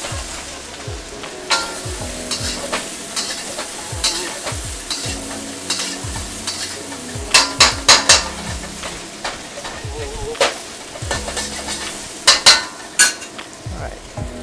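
Bok choy stir-frying in a wok in hot pork fat: a steady sizzle, with the metal spatula scraping and clanking against the wok. The strikes come loudest in two clusters, about halfway through and again near the end.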